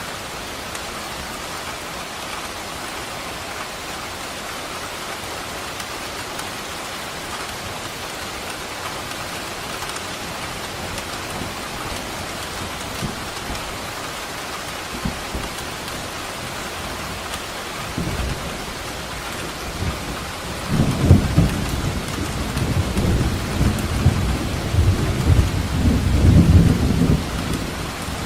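Steady heavy rain falling, with thunder breaking out about two thirds of the way in: a loud, crackling, rolling rumble that goes on for several seconds and dies away near the end.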